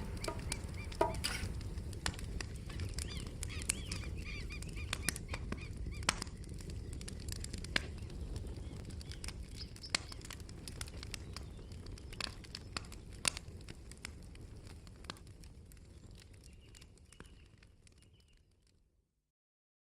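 Campfire crackling: scattered sharp pops over a low rumble, fading out gradually until it is gone near the end.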